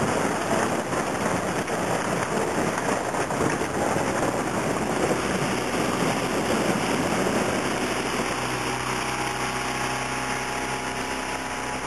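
Outboard motor driving a fourteen-foot boat, with a steady hiss of water rushing and spraying along the hull. About eight seconds in the water noise eases and the motor's steady hum comes through more clearly.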